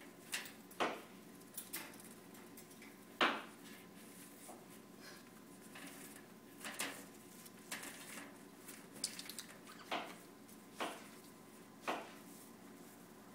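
Black-headed caique wrestling a stuffed toy monkey on a newspaper-lined cage floor: irregular short knocks, scuffs and rustles, about a dozen scattered through, the loudest about three seconds in and a quick cluster of clicks about nine seconds in.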